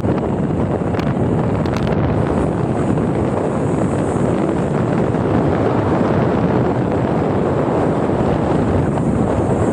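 Steady wind rush on the microphone over the running noise of a vehicle being ridden, with no clear engine pitch.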